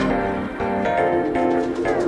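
Background electronic music: a melody of held notes changing every half second or so.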